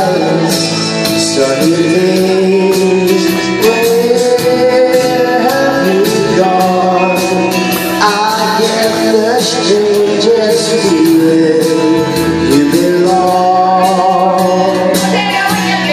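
A man singing into a microphone over a recorded backing track with a steady drum beat.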